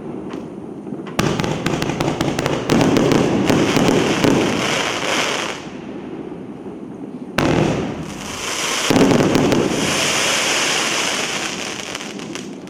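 A 200-shot 1.5-inch fireworks cake firing its last shells. Two sharp bangs, about a second in and again past seven seconds, are each followed by a few seconds of dense crackling and hiss from the bursting shells, and then it dies away.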